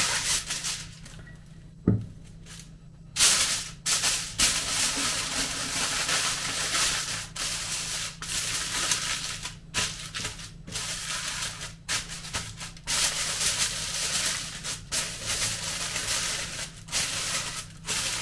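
Aluminium foil crinkling and rustling in irregular bursts as it is folded around a fish, with a quieter spell and a single knock about two seconds in.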